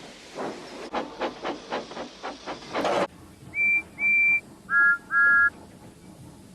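Steam locomotive sound effect: rapid, quickening chuffs that stop abruptly about three seconds in. Then the engine's whistle gives two short high toots, followed by two short lower two-note toots.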